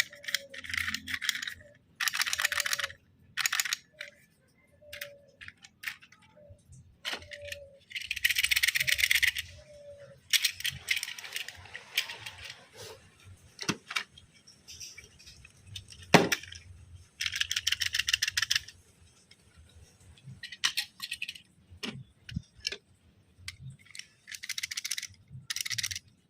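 Toy train parts being handled and fitted together: repeated bursts of fast rattling clicks, each lasting about a second or two, with separate sharp knocks, the loudest about sixteen seconds in.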